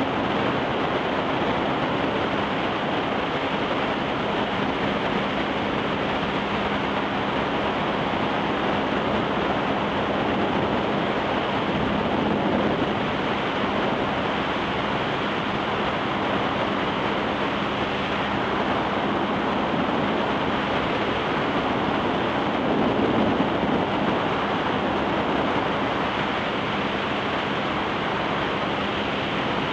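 Steady rush of water spray from a barefoot water skier's feet planing across the water behind a speeding tow boat, with wind on the microphone and a low steady engine hum underneath.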